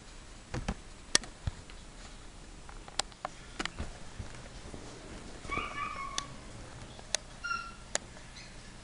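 Chihuahua puppies giving two short high whines, one about half a second long and a briefer, higher one later, among several sharp clicks and knocks, the loudest about a second in.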